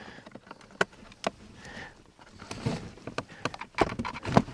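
Wiring connectors and plastic trim being handled: a scatter of small plastic clicks and knocks, with a louder clack near the end.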